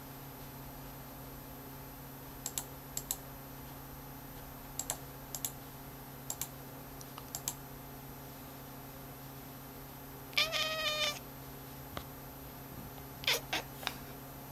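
Pairs of short, sharp computer clicks several times, then a domestic cat meows once for about a second about ten seconds in, followed by a few louder clicks near the end.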